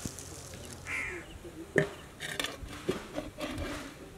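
Cut potato sticks being tipped from a tray into a steel pot: a sharp knock a little before the middle, then soft rustling and a smaller knock. A bird calls once about a second in.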